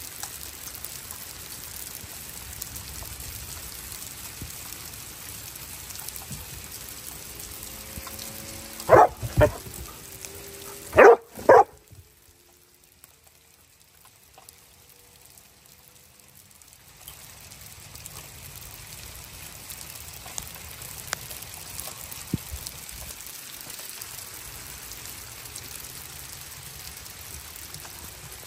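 Small hail falling steadily on a wooden deck and yard, with a dog barking four times in two quick pairs about a third of the way in. The patter dips for a few seconds after the barks, then returns.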